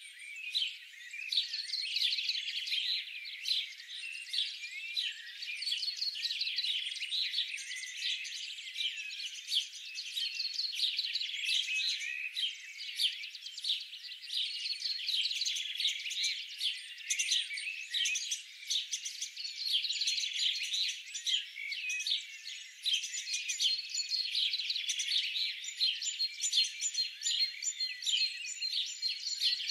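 Dense chorus of many small birds chirping and twittering without pause, all high-pitched with no low sound underneath.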